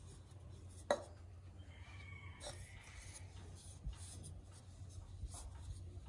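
Faint rubbing and scraping of an improvised roller pressing and rolling cookie dough out on a floured wooden table, with one sharp tap about a second in. A low steady rumble runs underneath.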